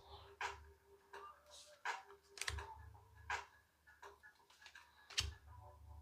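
Cardstock Pokémon TCG code cards being shuffled and flipped by hand: a string of light clicks and flicks, roughly one every half second to second, with a sharper snap about five seconds in.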